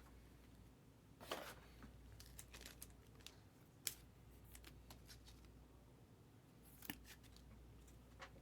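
Faint handling of trading cards and their pack wrappers: a few short rustles and clicks, about a second in, near four seconds and near seven seconds.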